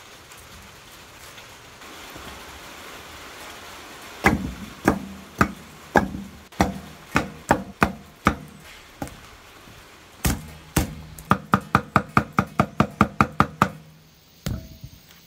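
Cleaver chopping vegetables on a thick wooden chopping block. After a few seconds of faint steady hiss, it lands about ten sharp single chops at roughly two a second, then a quick run of about five chops a second, then one last chop.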